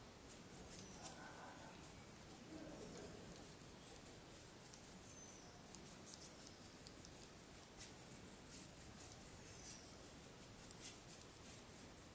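Faint, rapid light clicking and scratching of small hard metal and plastic laptop parts being handled, several clicks a second, with one sharper click near the end.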